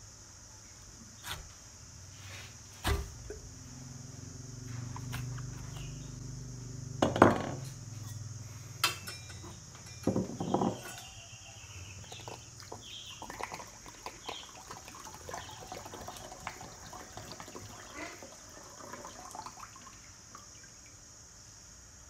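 A steel punch hammered into the top of a green coconut, with a few sharp knocks, the loudest about seven seconds in. Then coconut water pours and trickles into a ceramic bowl for most of the second half.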